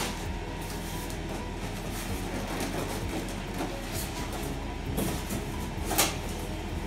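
Unpacking noises from a new built-in oven and its polystyrene packing: two short knocks, a small one about five seconds in and a louder one a second later, over a steady low background noise.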